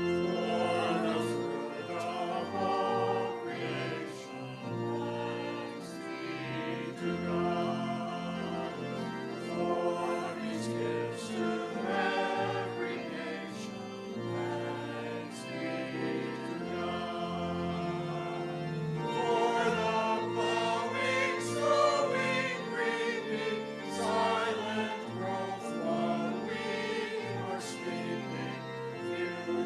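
Small vocal group singing a church song in parts, with organ accompaniment.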